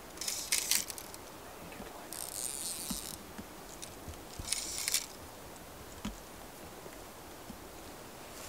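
Fly reel's click-and-pawl drag ratcheting in three short bursts as line is pulled off the reel before a cast.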